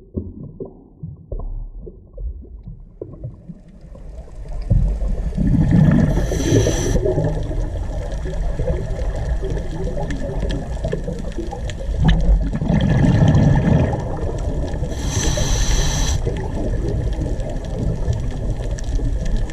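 Underwater ocean sound: faint low rumbling and clicking that swells about four seconds in into a loud, dense, churning underwater rumble, with two short bursts of high hiss partway through.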